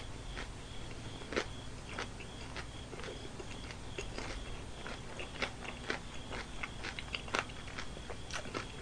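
Crispy fried chicken being chewed close to the microphone: irregular crunches of the battered crust, a few sharper than the rest.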